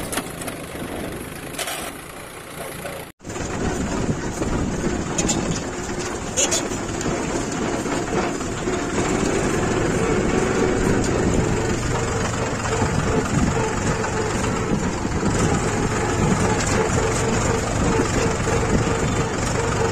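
Mahindra 275 tractor's diesel engine running steadily, heard from the driver's seat, after a quieter opening that ends in a sharp break about three seconds in.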